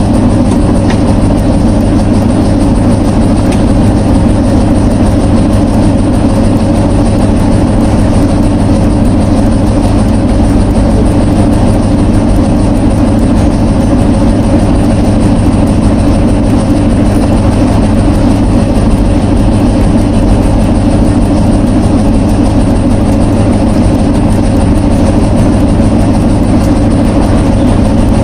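A loud, steady, low mechanical drone with a constant hum that does not change.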